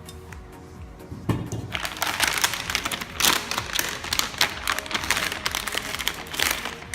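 Plastic packaging being handled and crinkled, a dense crackling rustle that starts about a second in and runs on with many sharp crackles.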